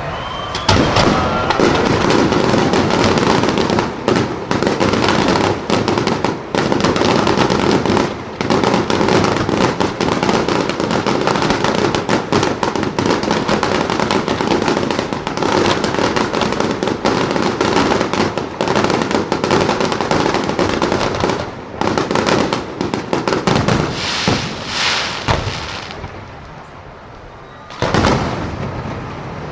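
Fireworks display: a dense, rapid barrage of bangs and crackling firecrackers, going on almost without break, then easing off into a brief lull near the end before another bang.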